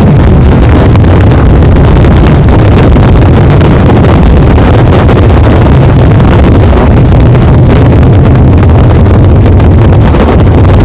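Ground battery of firecrackers (batteria alla bolognese) going off in a dense, unbroken barrage, the bangs so close together that they merge into one continuous deep rumble loud enough to overload the microphone.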